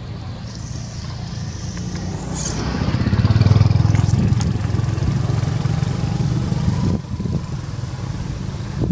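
A motor vehicle's engine passing by, growing louder to a peak about three and a half seconds in and dropping away about seven seconds in.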